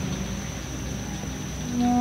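Open-air night ambience of a city square: a steady background hiss with a faint high steady tone and distant music. Near the end, a held musical note with several overtones comes in and stays on.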